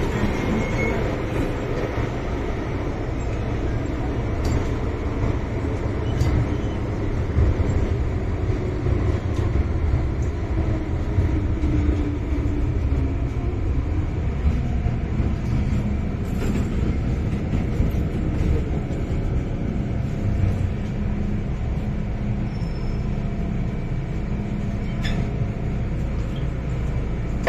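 Traction motors of an MTR Island Line M-Train running under way, heard inside the car: a low running rumble with several motor tones that shift in pitch and then hold steady. The car gives off an unusual doubled motor sound, which keeps up even while the train slows.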